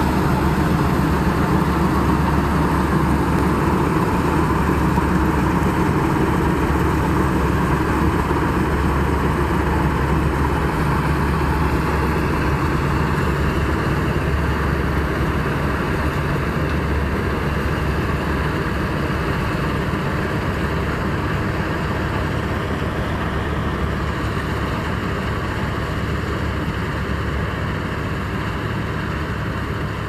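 A New Hira self-propelled combine harvester running while it harvests: its engine and threshing machinery make a loud, steady drone that slowly grows fainter.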